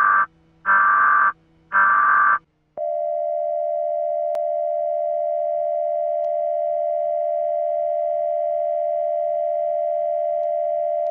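Emergency Alert System–style alert tones: three short, harsh electronic buzzes about a second apart, then a single steady alert tone that starts about three seconds in and holds.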